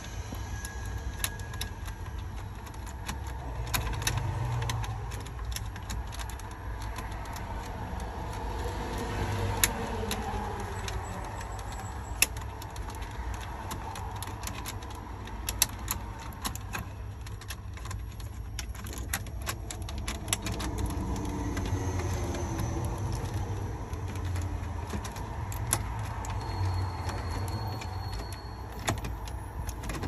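Scattered sharp clicks and small rattles of screws being worked loose by hand from a truck's plastic dashboard trim panel, over a steady low rumble.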